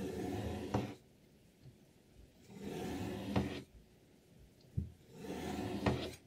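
Sharpening stone on a Hapstone T1 guided knife sharpener drawn along a knife blade: three strokes about two and a half seconds apart, each a rasping scrape of about a second that ends in a sharp click.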